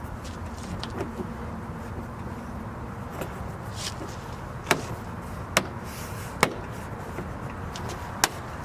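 Several sharp clicks and taps of plastic trim being handled and pressed back into place on a minivan, four louder ones spread over the second half, over a steady low background noise.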